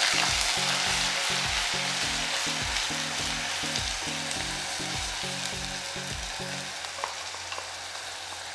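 Crushed onion sizzling as it fries in hot oil with whole spices in a kadai, stirred with a wooden spatula; the sizzle is loudest at first and slowly dies down, with a few light spatula taps near the end. A low beat of background music runs under it until near the end.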